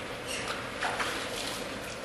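Water splashing and sloshing from a bucket as a face is rinsed of pepper spray: a few quick splashes between about half a second in and near the end, over a steady hiss of background noise.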